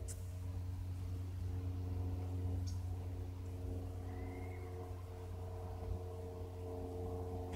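Cessna light aircraft's piston engine revving, held at steady revs: an even hum with several steady overtones.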